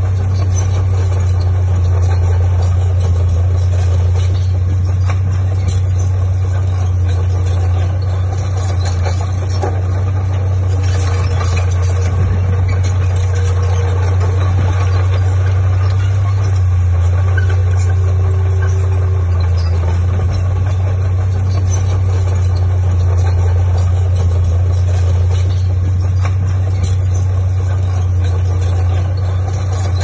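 Heavy earthmoving machine's diesel engine running steadily, a constant low drone without revving or pauses.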